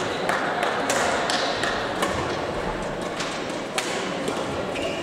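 Echoing sports-hall ambience of badminton play: irregular sharp taps of rackets striking shuttlecocks on the surrounding courts, with a few dull thuds.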